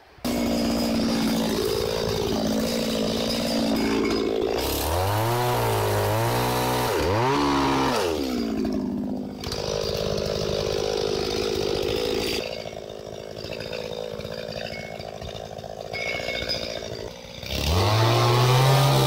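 ECHO chainsaw running and being revved up sharply several times, about five and seven seconds in and again near the end, with a lower, quieter stretch between, as it works on a felled pine trunk.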